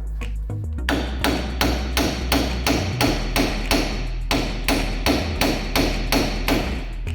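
Steady hammer blows on metal, about three strikes a second starting about a second in, each with a short ring.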